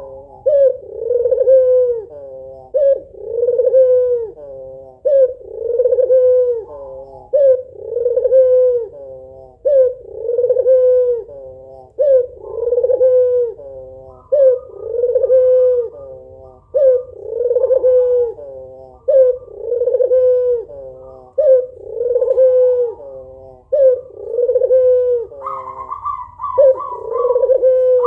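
White ringneck dove (puter) cooing over and over, about one coo a second: a female's call to a male. Near the end a higher, quicker call overlaps the coos.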